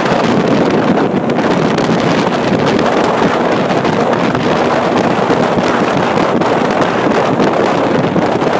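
Wind buffeting the microphone on an old ski boat running under way, with the boat's engine and the rush of the hull through the water beneath it; steady throughout.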